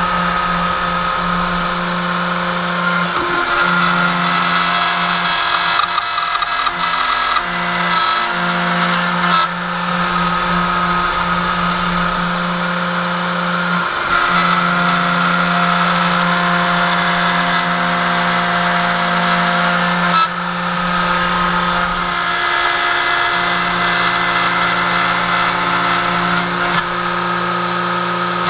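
CNC router spindle running steadily as the bit cuts a slot through a wooden sheet. Beneath it the stepper motors hum, their tone stopping, restarting and shifting in pitch every few seconds as the axes change direction.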